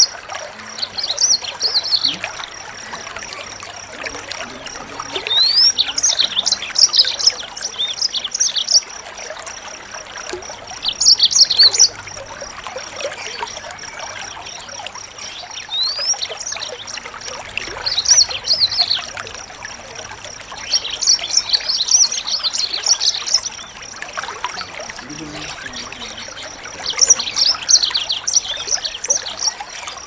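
Small songbird singing in bursts of quick, high chattering chirps and whistles every few seconds, a couple of them opening with a sharp rising whistle, over a steady trickle of water and a constant thin high tone.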